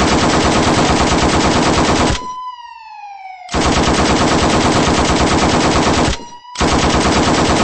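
Sustained automatic gunfire from a line of riot police, a dense rapid rattle of shots. It breaks off twice, and in the first pause a slowly falling tone sounds.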